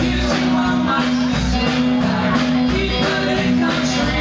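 Live country band playing loudly, with a woman singing lead over electric guitars, bass and a steady drum beat.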